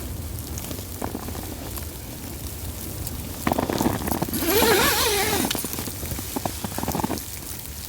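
Rain or wet snow pattering steadily on a tent's fly. About halfway through, a louder surge of noise with a wavering tone lasts roughly two seconds.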